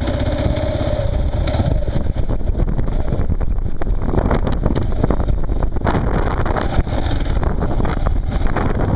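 Kawasaki KLR single-cylinder motorcycle engine running under way, mixed with loud wind rush on the microphone as the bike rides along.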